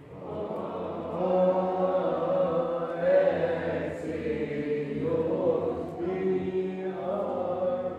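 Background music of slow vocal chanting in long held notes over a steady low drone.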